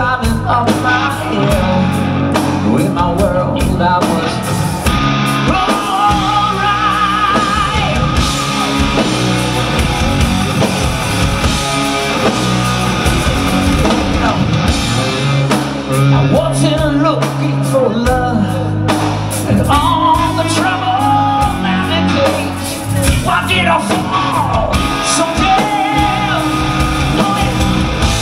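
Live hard rock band playing: drums, bass, electric guitar and keyboards, with a man singing lead vocals over them.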